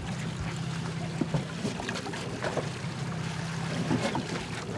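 Boat's outboard motor idling with a steady low hum, under a wash of wind and water noise.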